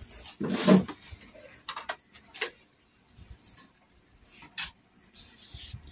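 Light clicks and knocks of hands handling cables and parts on an opened LCD TV chassis, with a louder clatter about half a second in and scattered small clicks after.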